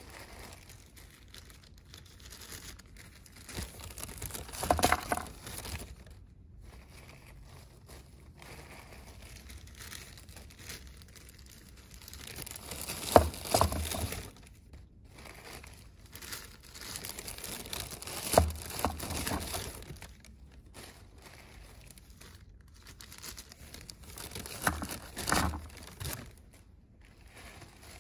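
Plastic sheeting crinkling and sharp clicks of stone knocking on stone as rocks are set down on a pile. The sound comes in four short bursts a few seconds apart.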